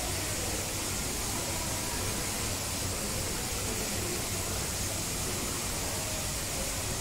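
Steady rushing background noise with a low hum underneath, unchanging throughout.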